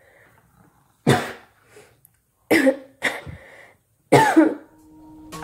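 A person coughing three times, about a second and a half apart, each cough sudden and dying away quickly.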